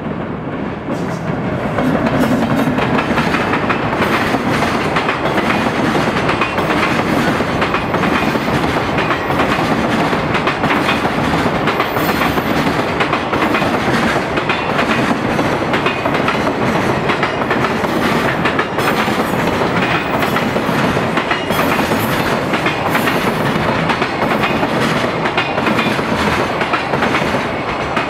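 Freight train hauled by an EF210 electric locomotive passing close by: the sound rises sharply about two seconds in as the locomotive arrives. A long run of container flatcars follows with steady clickety-clack of wheels over the rail joints, fading near the end as the last wagon goes by.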